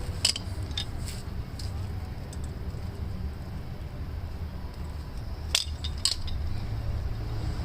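Sharp metallic clinks of hand tools on the rear wheel hub of a car: a couple near the start and two louder ones about five and a half and six seconds in, over a steady low rumble.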